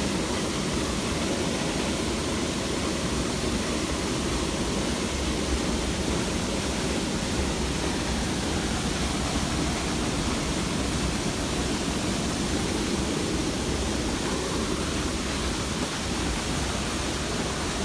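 Steady, loud rushing noise with a fluctuating low rumble underneath.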